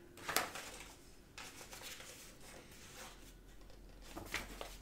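Pages of a paper booklet being turned and handled: a sharp rustle about a third of a second in, softer rustling after it, and another rustle near the end.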